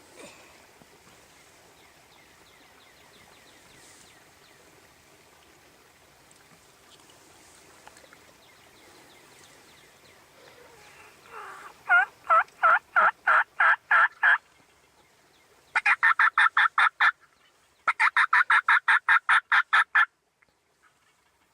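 Turkey yelping: three runs of loud, evenly spaced yelps at about four a second, beginning about eleven seconds in after faint outdoor background. The last and longest run ends abruptly.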